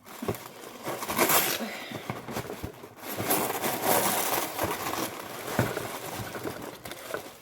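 Paper and plastic packaging crinkling and rustling as books are handled and unpacked, with a few light knocks.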